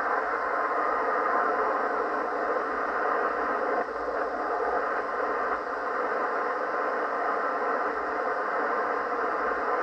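Yaesu FT-710 HF receiver hissing with steady band static in upper-sideband mode while it is slowly tuned around 5.286 MHz. The hiss is narrow and muffled by the receive filter, with no voice or clear tone in it.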